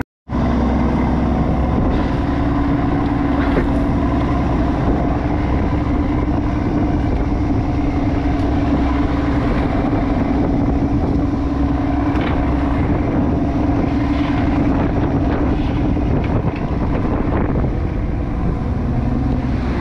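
Crab fishing boat's engine running steadily with a constant hum, under a broad rush of wind and water noise.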